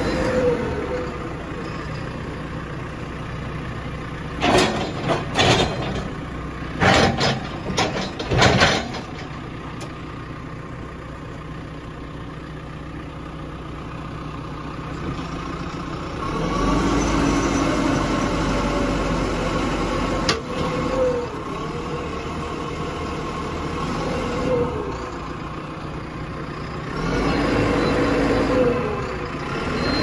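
JCB 3CX backhoe loader's diesel engine running as the backhoe digs. A burst of sharp metallic knocks and clanks comes between about four and nine seconds in. Twice, in the second half, the engine runs louder and harder under hydraulic load, its pitch bending up and down.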